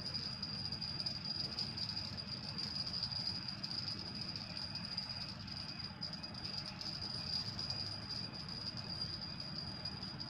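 Insects buzzing in a steady, high-pitched chorus, with a low even rumble underneath.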